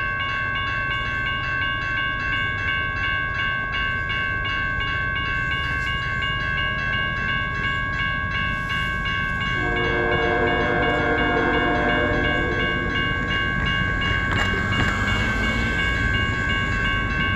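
Railroad grade-crossing bell ringing in rapid, even strikes as the warning signals flash. About ten seconds in, the approaching freight locomotive sounds one long multi-tone horn blast of about four seconds. A car passes close by near the end.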